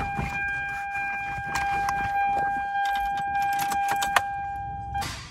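Toyota Celica horn sounding continuously on one steady high note, cut off suddenly near the end, with metallic clinks and rattles of the battery cables. The horn is stuck on after the aftermarket steering wheel swap left the horn circuit unsorted, so it sounds as soon as the battery is connected.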